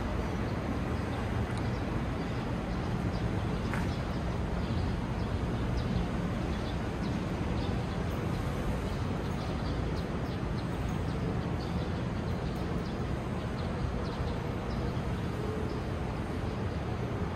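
Steady low rumble of city background noise, with faint light ticks over it.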